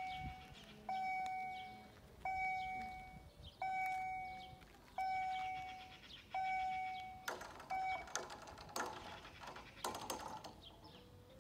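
GZT-30 level-crossing warning bell striking about once every second and a half, each strike ringing out and fading. It stops about eight seconds in, followed by a cluster of knocks and rattles as the half-barriers finish coming down.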